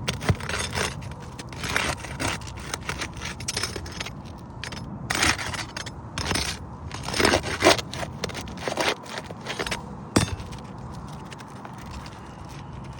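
Asphalt roof shingles scraping and crackling in irregular bursts as the damaged shingle is worked loose, with one sharp knock about ten seconds in.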